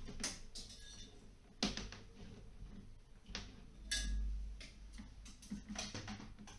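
Irregular sharp clicks and knocks of hand tools and wires being handled while heat-resistant alarm wiring is joined with closed-end crimp connectors, with a heavier knock about four seconds in.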